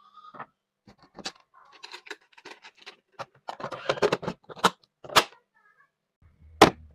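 Hard plastic lunch box being handled and its clip-on lid fitted, with a run of small clicks and rattles and then a few sharp snaps as the lid's latches close.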